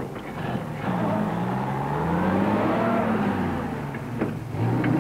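An engine running and revving, its pitch climbing over the first few seconds, dipping, then rising again near the end.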